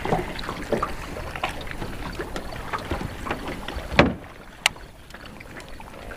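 Water lapping against the hull of a small fishing boat, with scattered light knocks and clicks and a louder knock about four seconds in.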